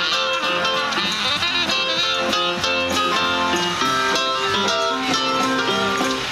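Small live band playing through amplifiers and a speaker cabinet, guitar to the fore.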